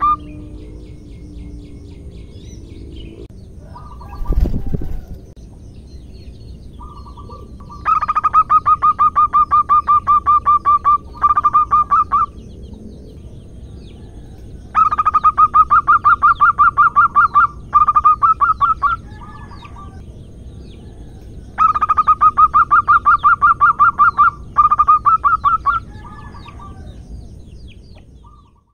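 Zebra dove (perkutut) calling: rapid runs of short cooing notes on one steady pitch, in several bursts lasting one to three seconds with pauses between. A single low thump about four seconds in.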